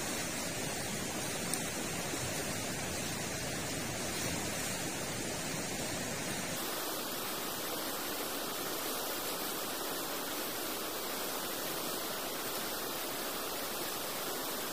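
Steady rushing of a river in flood, a continuous hiss of water with no distinct events. About six and a half seconds in, the deep part of the rush drops away abruptly and the hiss turns brighter.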